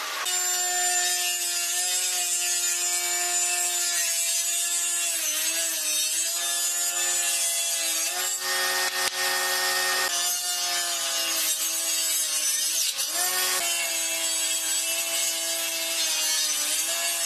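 A power tool running steadily while cutting or shaping wood, with a continuous motor whine over gritty cutting noise. The motor pitch sags briefly several times as the tool takes load.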